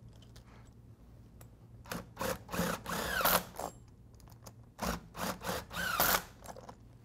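Makita 18-volt cordless impact driver running a nut down on a bolt of a conveyor-belt fastener end plate, tightening the plate onto the belt. It runs in two short spurts, one about two seconds in and one about five seconds in, its motor pitch rising and falling within each.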